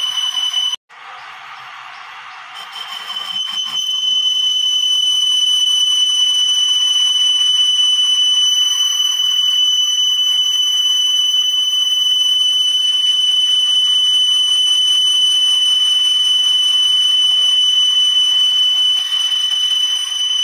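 Lathe cutting tool squealing against a spinning steel tube: a steady high-pitched whine with overtones. It breaks off briefly about a second in and builds up to full loudness over the next few seconds.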